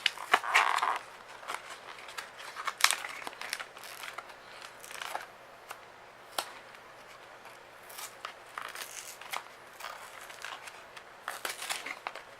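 Toy packaging of a Disney TsumTsum 3-pack being worked open by hand: plastic crinkling and tearing with irregular clicks and crackles, loudest in a burst of crinkling about half a second in.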